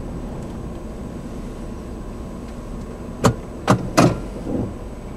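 A steady low rumble, then three sharp knocks in quick succession a little past three seconds in, followed by a softer thump.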